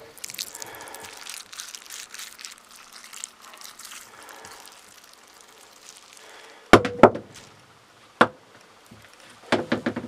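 Faint rustling and scraping, then a handful of sharp knocks and thuds in the last few seconds, one with a short ring.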